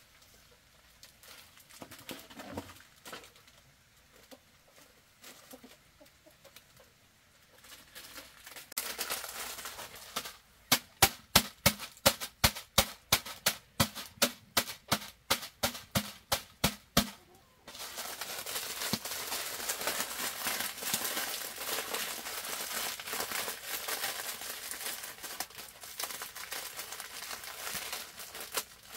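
A knife chopping on a cutting board in a steady rhythm of about three strokes a second for some six seconds, after which a steady hiss sets in. Faint clucking of chickens is heard in the quieter first part.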